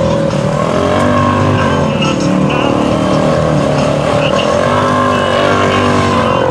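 ATV engine running hard at high revs, its pitch wavering slowly up and down.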